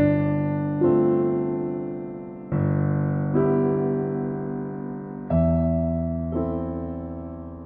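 Background music: slow electric piano chords, each struck and left to fade before the next.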